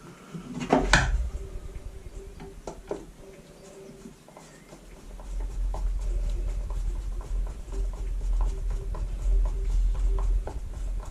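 Small clicks and knocks of metal and plastic parts being handled and screws being fitted into a leaf blower, with one sharper knock about a second in and a low rumble of handling in the second half.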